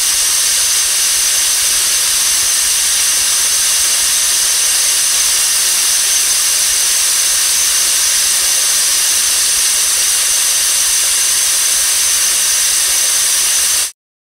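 Loud, steady hissing noise, heaviest in the high pitches, with a faint thin high whine running through it; it cuts off suddenly near the end.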